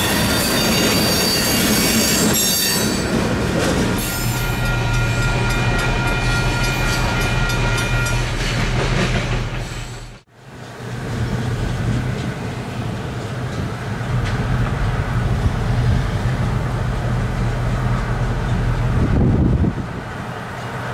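Freight train of tank cars rolling past close by, its steel wheels squealing with steady high-pitched tones over the rumble and clatter of the cars. About ten seconds in the sound drops out for a moment and comes back as a steadier low rumble of a train crossing a steel girder bridge, mixed with highway traffic.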